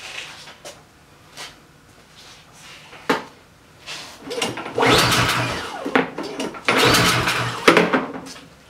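Two pulls on the recoil starter of a Poulan Pro PRG21 snowblower's four-stroke engine, each cranking for about a second without the engine catching and running. It is a snowblower that will not take fuel, which the mechanic blames on the carburetor.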